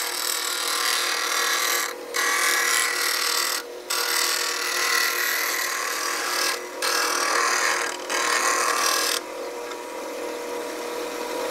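Delta bench grinder running with a steady hum while a scrub plane's radiused steel blade is ground against the wheel to re-grind its primary bevel: a grinding hiss in five passes with brief lifts between. About nine seconds in the blade comes off the wheel and only the grinder's spinning hum is left.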